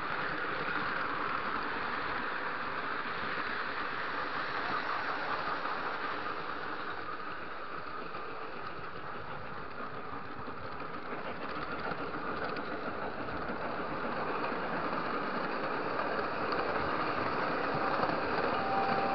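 Lionel model train running on its track, heard from on board: a steady rolling rumble of wheels on rail with motor hum.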